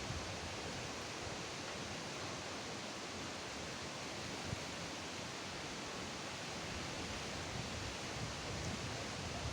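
Strong wind blowing, a steady rushing noise.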